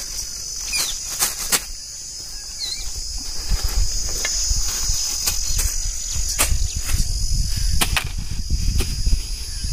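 Steady high-pitched chirring of crickets, with a scatter of sharp clicks and crinkles from plastic snack bags being handled and set down on a metal plate. A low rumble comes in about three seconds in and stays.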